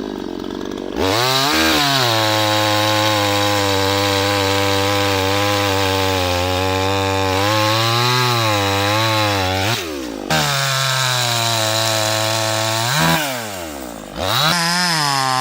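Petrol chainsaw engine running at high speed with a wavering pitch. The sound is lower for about the first second before climbing, drops out briefly around two-thirds through, and sags then rises again near the end.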